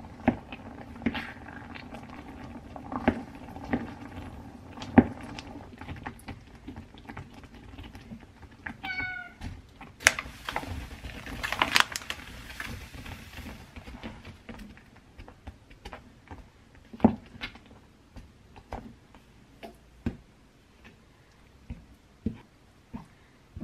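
A wooden spoon knocks and scrapes in a pot as whole cranberries are mashed and simmered. About nine seconds in, a cat gives a single short meow. About a second later, sugar poured from a bag runs into the pot with a steady hiss for about three seconds, then the thick jam is stirred with occasional knocks.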